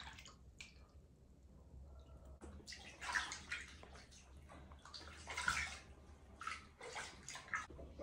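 Bathwater sloshing and splashing in a plastic basin as a baby monkey is washed by hand, in irregular splashes, the louder ones about three and five and a half seconds in.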